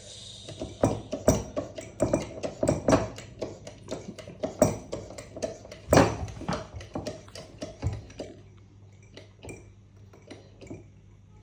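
Irregular hard clicks and metallic clinks from a hydraulic crimping tool and its metal parts being handled: a quick run of knocks that thins out to a few faint clicks near the end.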